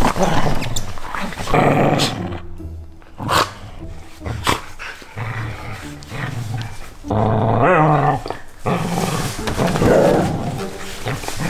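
Border collies growling in play during a tug-of-war over a slipper, in several rough bouts with short gaps, with music underneath.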